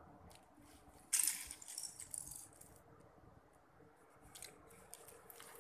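Plastic Lego minifigure parts clicking and rattling in the hands as the figure is put together. There is a burst of clatter about a second in, then a few lighter clicks.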